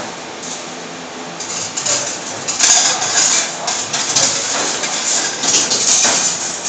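CNC rebar stirrup bending machine running, feeding steel bar through its straightening rollers and bending it into stirrups. Steady mechanical noise with louder, uneven surges and a few sharp clicks from about two and a half seconds in.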